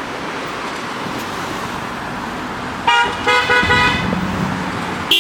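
Car horn honking in a quick series of short toots about three seconds in, over steady street traffic noise.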